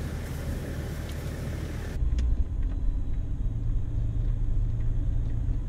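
For the first two seconds, an even outdoor hiss. About two seconds in it changes to a Toyota Land Cruiser HZJ105's diesel engine running, heard from inside the cab as the vehicle drives down a bush track. The sound is mostly low-pitched and steady.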